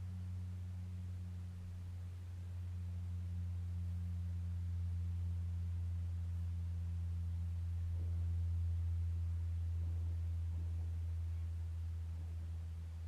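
Steady low hum, a single deep tone with a fainter overtone that swells slightly in the middle and eases off near the end; no bangs or crackles.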